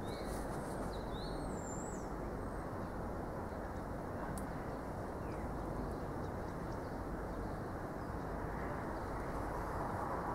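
A steady rushing noise, with a few short bird chirps in the first couple of seconds.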